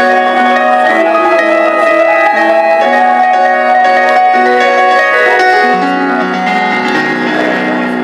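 Live rock band music: a slow ballad intro of held piano chords, moving to a new chord about once a second.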